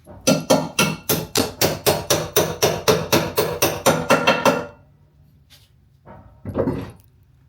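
Rapid hammering, about five ringing blows a second for some four and a half seconds, then a single further knock a couple of seconds later.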